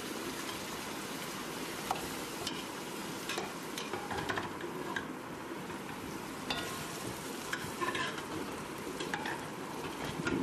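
Pieces of pre-boiled mutton going into hot oil and fried onion masala in a metal pot, sizzling steadily, with scattered light taps and clicks as the pieces land.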